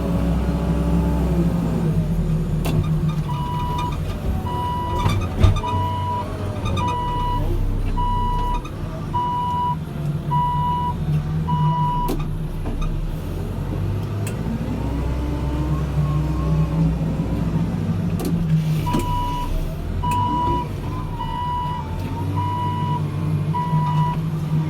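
A New Holland backhoe loader's diesel engine running and revving up and down as the machine works. Its reversing alarm beeps about once a second for several seconds, stops, then starts again near the end, with a few clanks from the machine.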